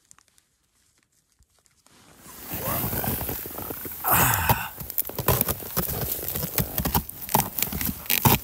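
After about two seconds of near silence, a person crawls through a snow shelter's entrance tunnel: a dense, irregular run of snow crunching and scraping and jacket fabric rustling.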